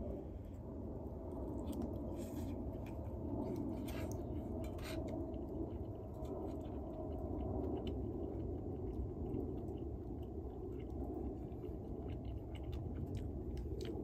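Spoon scraping and tapping against a pan of rice as someone eats, with chewing, in short scattered clicks, most of them between about two and five seconds in, over a steady low background noise.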